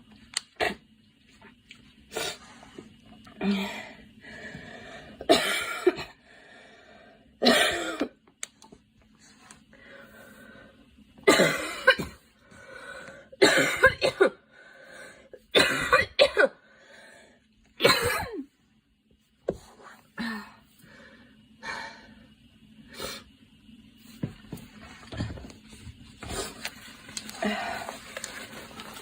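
A young woman coughing over and over: single coughs and short runs of two or three, every second or two, the loudest in the middle and softer ones toward the end.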